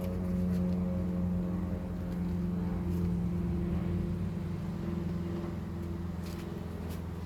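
Honeybees buzzing around an opened hive: a steady, dense drone with a few faint clicks.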